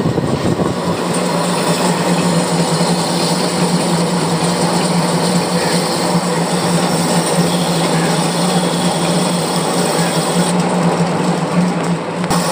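Metal lathe running with a steady hum, its tool cutting a V-groove into a spinning multi-groove belt pulley.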